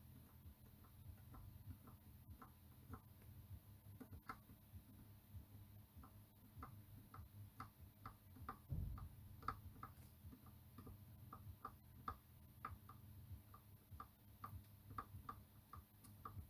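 Faint, light ticks of a tool tip tapping along the freshly soldered pins of a surface-mount IC, checking each joint is solid; sparse at first, then two or three a second. A soft low bump about nine seconds in, over a faint steady hum.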